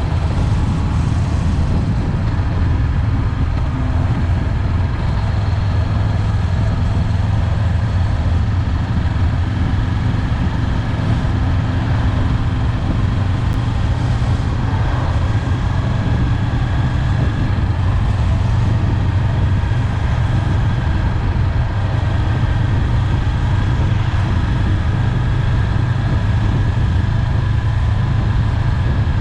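Honda 400X motorcycle's parallel-twin engine running at a steady low pitch, with no revving.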